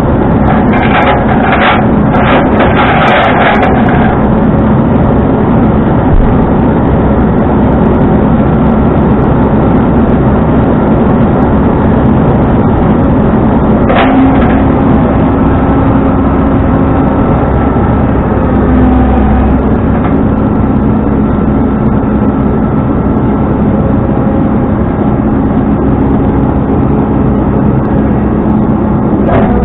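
Tow truck driving with a load, its engine and road noise running steadily. There are a few rattles about a second in and a single sharp click about fourteen seconds in.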